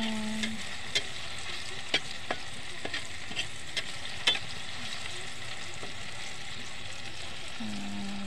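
Chopped garlic, onion and tomato sizzling steadily in hot oil in a wok, stirred with a spatula that clicks and scrapes against the pan several times in the first half, then only the sizzle goes on.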